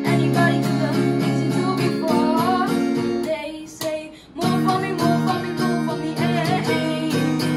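Acoustic guitar being strummed in a steady rhythm, with a boy singing the melody over it. The strumming breaks off about three and a half seconds in and comes back a second later.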